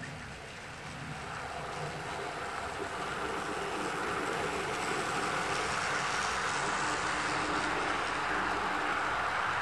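OO gauge model train running on garden track: the electric motor's hum and the wheels on the rails, growing louder over the first few seconds as it approaches, then holding steady.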